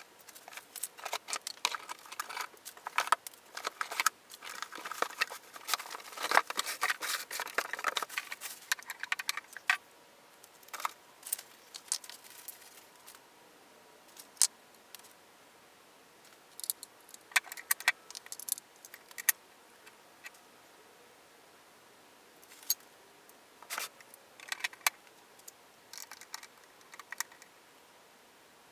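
Hands unpacking and handling a pressure washer's packaging and plastic parts: a dense stretch of rustling and crinkling with many clicks and knocks for the first several seconds, then scattered clicks and light clatter.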